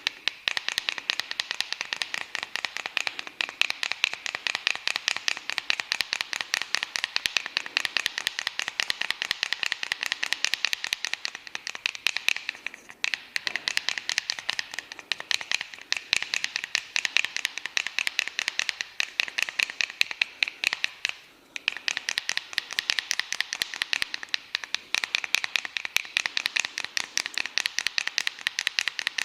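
Quick, even hand-tapping strokes of a percussive massage, about five or six a second, with two short breaks, about halfway and two-thirds of the way through.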